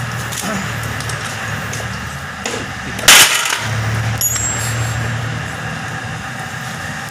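Small metal parts of a diesel injection pump being handled on a bench, with a faint clink, over a steady low hum. One loud, short, sharp burst of noise comes about three seconds in.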